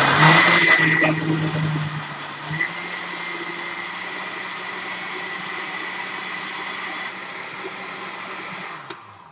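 Blender running as it blends fruit into a smoothie. It is louder for the first couple of seconds, then runs at a steady hum, and winds down and stops near the end.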